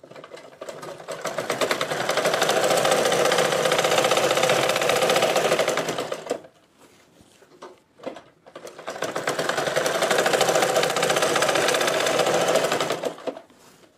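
Domestic sewing machine stitching through a gathered elastic waistband in two runs, each speeding up and then slowing to a stop, with a short pause between them about halfway through.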